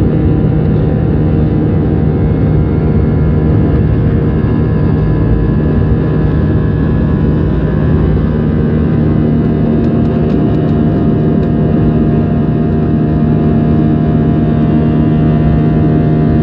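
Airliner's wing-mounted jet engines at takeoff power, heard inside the cabin: a loud, steady rumble with a droning hum through the takeoff roll and liftoff.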